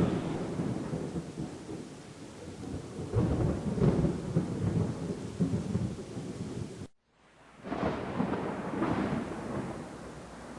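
Thunder rumbling in rolls over the steady hiss of rain. The sound cuts out suddenly about seven seconds in, then another roll of thunder builds.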